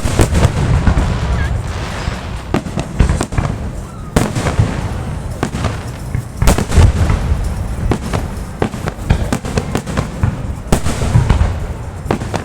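Fireworks display going off: a dense, irregular run of sharp bangs and crackles over a continuous low rumble of booms, with several louder reports along the way.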